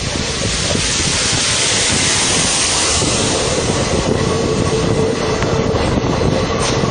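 Train running along the track, heard from on board: a steady rush and rumble with scattered wheel clicks, and a faint steady tone coming in about halfway through.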